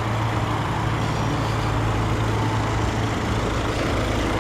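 Car engine idling: a steady low hum under an even rush of noise.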